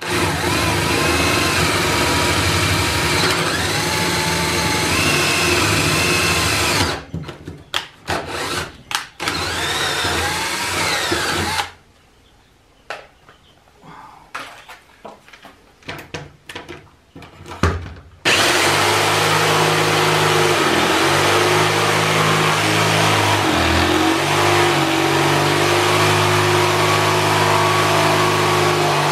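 Power tools cutting pallet-wood boards: a cordless drill runs first, boring through, then stops and starts. After a quieter stretch with a few knocks, a jigsaw cutting a round hole sets up a steady drone from about two-thirds of the way in, dipping briefly twice as it bogs in the cut.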